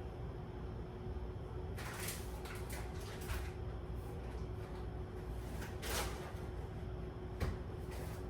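Groceries being handled and put away in a cupboard: rustling and scraping of packages with a sharp knock about seven seconds in, over a steady low hum.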